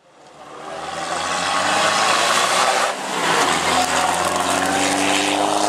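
Rally SUV's engine running at high revs on a gravel stage, with the hiss of tyres and gravel spray; the sound fades in over the first couple of seconds, dips briefly about three seconds in, then the engine pitch climbs slowly as it pulls.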